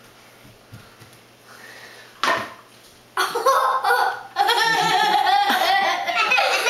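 Young children laughing and shrieking loudly, starting about three seconds in and going on with brief breaks, after one short sharp sound about two seconds in.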